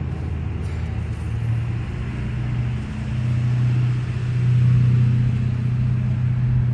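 A motor vehicle engine running with a low steady hum, growing louder about three seconds in and peaking a little before the end.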